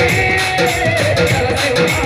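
Ayyappa Swamy devotional bhajan performed live: a singer's melody over instrumental accompaniment with a steady beat.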